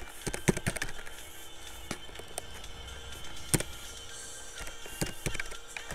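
Irregular computer keyboard and mouse clicks, about ten scattered taps, over faint background music.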